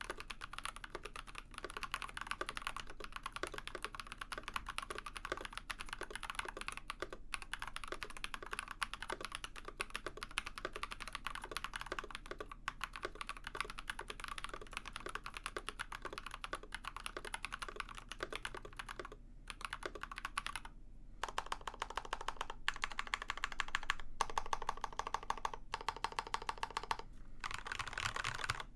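Fast typing on a custom mechanical keyboard, an Ikki68 Aurora with Builtbynim long-pole linear switches (POM stem, polycarbonate bottom housing, nylon top housing), giving a clacky keystroke. There is a short pause a little past two-thirds of the way through, and the typing is somewhat louder after it.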